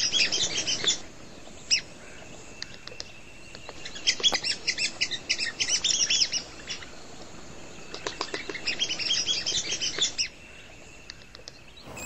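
Red-cockaded woodpeckers calling: three bouts of rapid, high-pitched chirps, at the start, in the middle and again about eight seconds in, with quieter gaps between.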